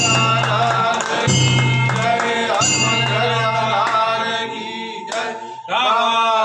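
Devotional singing over instrumental accompaniment with a steady drone, broken by a brief pause a little after five seconds in before the singing resumes.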